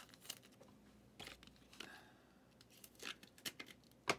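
Trading cards being handled: faint rustling and soft clicks as cards are slid and flipped through by hand, with a sharper tap near the end.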